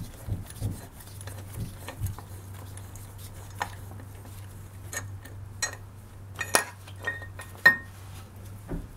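Metal thermostat housing being worked loose and pulled off a BMW engine: scattered knocks and ringing metallic clinks, the sharpest in the second half. A low steady hum runs underneath.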